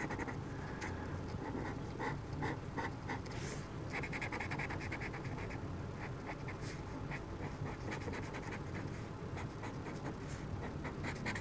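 Felt-tip marker rubbing back and forth on drawing paper: a soft, steady run of quick scratchy colouring strokes.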